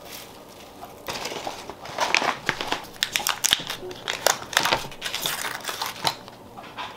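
A foil-lined butter wrapper being unfolded by hand, crinkling in a run of irregular crackles that start about a second in.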